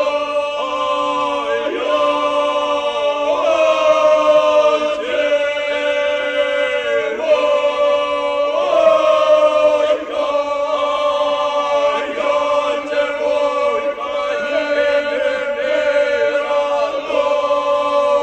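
Traditional Herzegovinian folk group singing a cappella: one part holds a steady low drone while the upper voice carries a wavering, ornamented melody, the phrases breaking off every two seconds or so.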